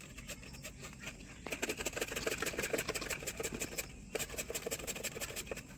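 Peeled raw potato being cut into thin slices: a quick, uneven run of small clicks and taps from the blade. There is a short pause near the end.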